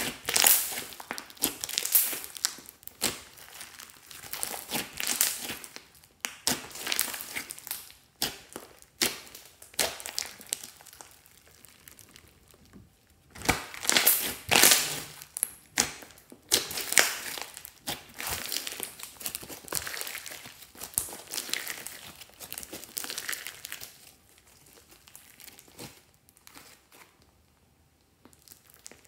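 Hands squishing and pressing thick foamy slime, with many small pops and crackles of trapped air in irregular bursts; it goes quieter for the last few seconds.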